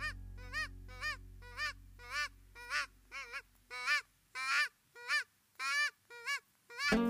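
Hand-blown goose call sounding a steady series of short Canada goose honks, about two a second, each note breaking upward and falling off, as a hunter calls to geese over decoys. Background music fades out in the first seconds and louder music starts near the end.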